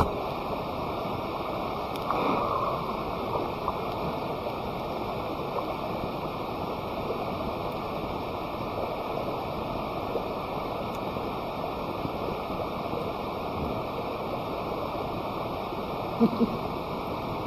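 Steady rushing noise like flowing water, with a few faint clicks and two short knocks near the end.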